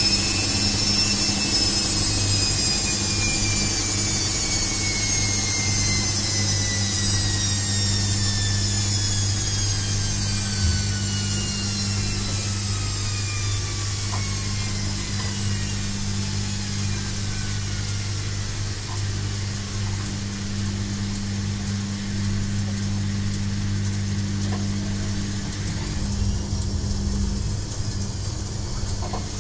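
Washing machine running a spin, its high motor whine falling slowly and steadily in pitch as the drum slows, over a steady low hum.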